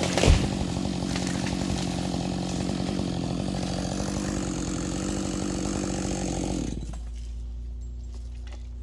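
Chainsaw running steadily without cutting, then shut off about seven seconds in. A sharp knock sounds just after the start.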